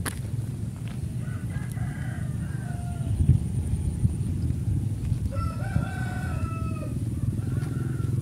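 A rooster crowing three times: a short crow about a second and a half in, a longer one around five seconds in, and a short one near the end, over a steady low rumble.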